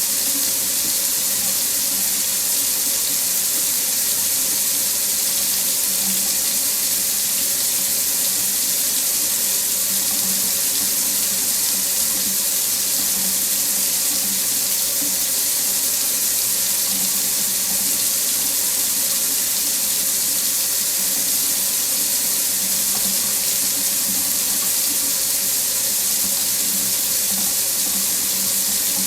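Faucet running steadily into a sink, an even hiss of falling water with no change in flow.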